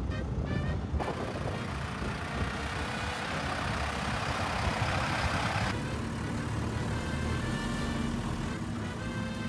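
Mercedes-Benz Unimog camper truck driving on sand. A loud rushing noise sets in about a second in and cuts off near the middle, giving way to a steadier, lower engine hum heard from inside the cab.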